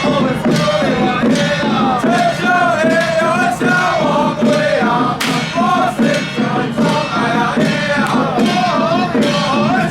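Xiaofa ritual troupe chanting a ritual song together in wavering pitch, over a steady run of drum and gong strikes.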